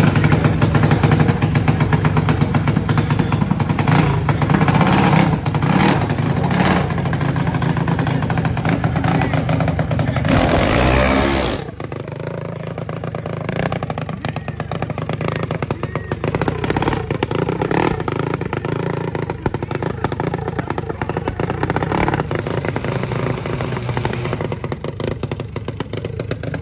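Small junior dragster engine running with a rapid, choppy exhaust beat. A brief loud rush of noise comes about ten seconds in. The engine then carries on noticeably quieter.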